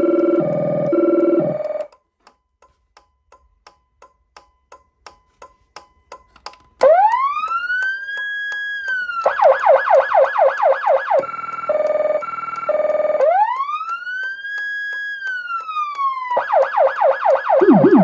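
Electronic emergency siren with a Federal Signal Rumbler 2 low-frequency add-on, playing an intersection-clearing sequence. A low pulsing two-tone stops about two seconds in, and a few faint ticks follow. About seven seconds in a wail rises, holds and falls, then breaks into a fast yelp. A low pulsing tone comes next, then another wail and yelp, with a low falling sweep near the end.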